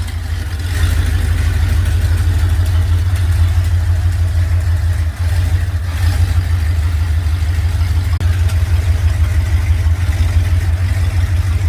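Engine of a homemade boat buggy running with a steady low drone, getting louder about a second in.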